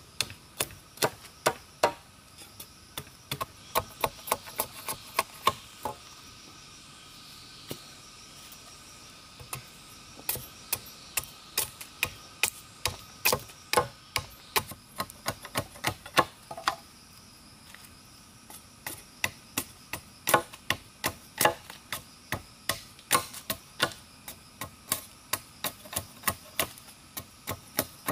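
Series of sharp chopping strikes on wood, about two a second, pausing twice before starting up again.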